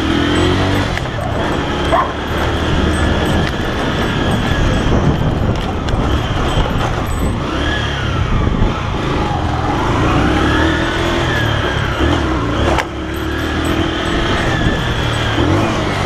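Honda CG 125's single-cylinder four-stroke engine running as the motorcycle is ridden, its revs rising and falling with the throttle, with a dip and climb in pitch a little past the middle.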